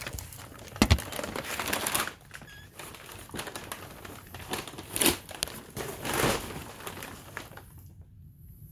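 Brown packing paper crinkling and rustling as a plastic car bumper and its grille parts are handled on it, with sharp knocks about a second in and around five seconds.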